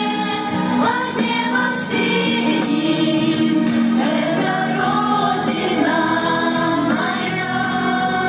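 A children's choir song with a backing track, in a passage between a chorus and the next verse with no clearly sung words.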